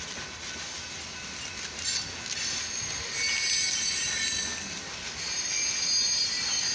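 Freight train of covered hopper cars rolling through a grade crossing, its wheels squealing in several high, steady tones over the rumble of the cars. The squeal grows louder about three seconds in. It is heard from inside a stopped car.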